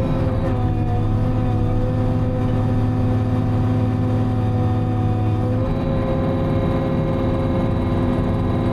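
Timberjack 608 harvester's diesel engine running steadily, heard from inside the cab; its note shifts a little about five and a half seconds in.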